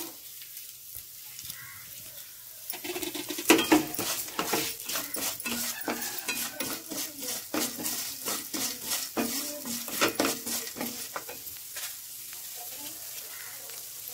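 Chana dal, urad dal, coriander and cumin seeds being stirred with a wooden spatula in a non-stick frying pan as they dry-roast in a little oil: a quick run of scraping and rattling over a light sizzle. It starts about three seconds in and stops about twelve seconds in.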